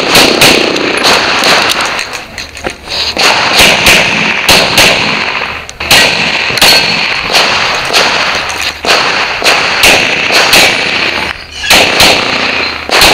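Pistol fired in quick strings of sharp, loud shots with short echoes, some only fractions of a second apart and others spaced by brief pauses, typical of a practical-shooting course of fire.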